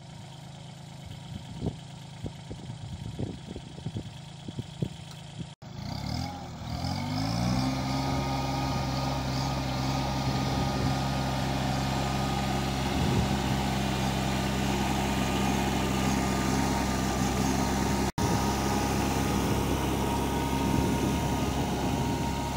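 Kubota NeoStar 21 hp compact tractor's diesel engine, softer with a few scattered knocks at first, then revving up about six seconds in and running steadily at working speed as it pulls a ridger through the soil.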